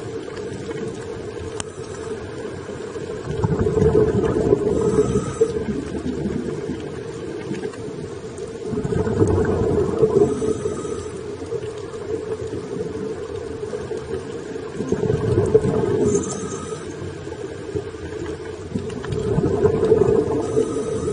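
Scuba diver breathing through a regulator underwater: a low bubbling rumble that swells four times, about every five to six seconds, with each exhalation.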